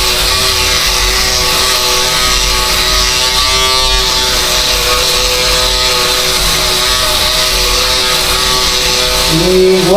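Electric shaver buzzing steadily as it is run over the scalp, taking an already short head of hair down to smooth bald skin.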